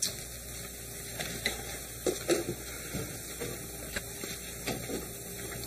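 A few faint, scattered clicks and knocks over a steady low hum and hiss.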